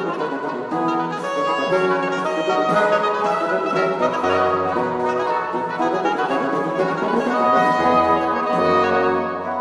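Baroque oboe band playing a melody: two baroque oboes lead over a taille (tenor oboe), with a bassoon bass line coming in about four seconds in.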